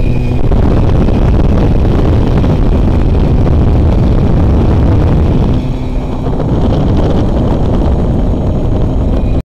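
Heavy wind buffeting on the microphone of a moving Simson Duo, with its small two-stroke engine running steadily underneath; the engine note comes through more clearly about six seconds in. The sound cuts off suddenly at the end.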